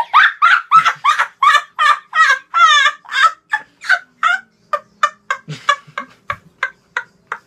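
A boy laughing hard: a rapid run of high-pitched cackles, about three a second, growing shorter and fainter after about five seconds.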